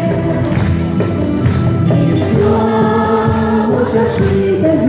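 A large amateur group of men and women singing a folk song together over accompanying music, holding one long note for about a second and a half in the middle.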